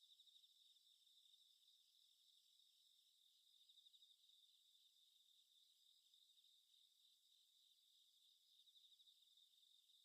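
Faint, steady chorus of crickets chirping in quick, even pulses.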